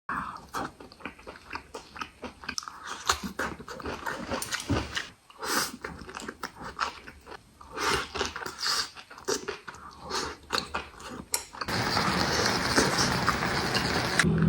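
Close-miked eating sounds: a person biting and chewing crisp pan-fried pig intestine and kimchi, with irregular crunches and wet chewing. Near the end a steady hiss takes over.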